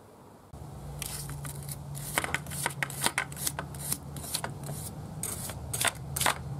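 Wire brush scrubbing vinegar-soaked corrosion off a car battery terminal, in short irregular scraping strokes, over a steady low hum that starts about half a second in.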